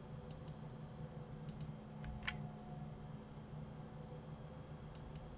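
Faint clicking of a computer mouse and keyboard: three pairs of quick clicks spread through, and one slightly stronger click a little over two seconds in. A low steady hum sits underneath.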